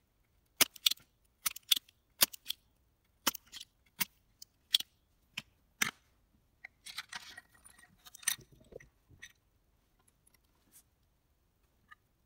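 Spring-loaded desoldering pump clacking as solder is sucked out of circuit-board holes: about a dozen sharp clicks over five or six seconds, several in quick pairs. Then a few seconds of rustling and clatter as the tools and the board are handled.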